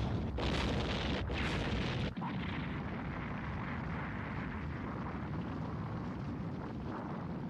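Sound effect of a large aircraft exploding: a blast and rolling rumble that is loudest and renewed two or three times in the first two seconds, then settles into a steadier, quieter rumble.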